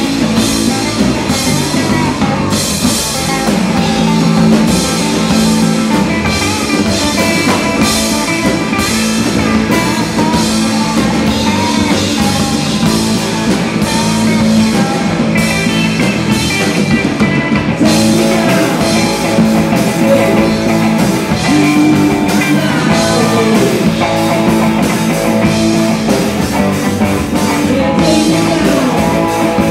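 Live rock band playing loudly: electric guitars, bass guitar and a drum kit keeping a steady beat.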